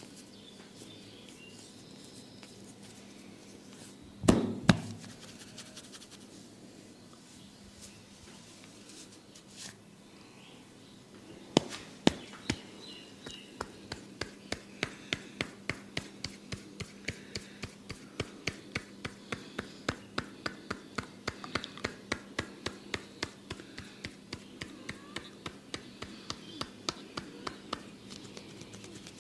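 Hands tapping and slapping on a person's head during a massage: two loud slaps about four seconds in and two more about twelve seconds in, then a steady run of taps about twice a second.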